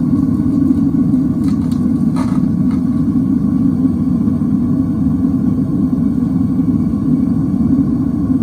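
Gas burner of a Devil Forge melting furnace running steadily with a loud, even low rumble while it heats a crucible of aluminum. A few light metallic clinks come between about one and three seconds in, as steel tongs are set down in the crucible.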